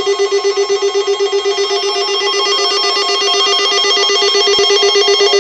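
Electronic alert tone of an Emergency Alert System weekly test: a buzzy, ringing tone pulsing about six times a second without a break.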